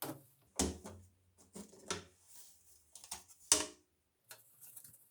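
A string of sharp clicks and knocks as the flush plate and front panel of an in-wall toilet cistern are unclipped and handled, the loudest about three and a half seconds in.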